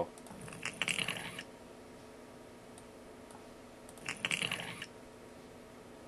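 A squishy, wet foley sound effect for cutting flesh, played back twice about three seconds apart, each burst crackly and under a second long.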